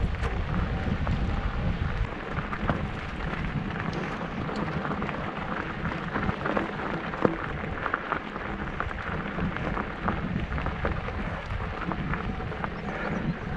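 Wind buffeting the microphone of a camera riding on a mountain bike, with tyres crackling over a loose gravel track and many small rattles and clicks from the bike.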